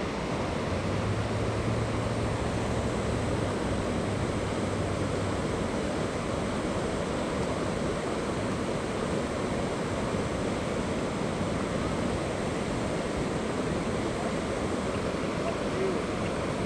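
Steady rushing of a small stream's current flowing over shallows.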